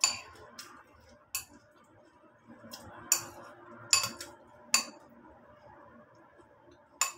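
Metal spoon clinking against a ceramic bowl of cornflakes and milk as it is scooped through. There are about nine sharp clinks at uneven intervals, with the loudest near the start and around the middle.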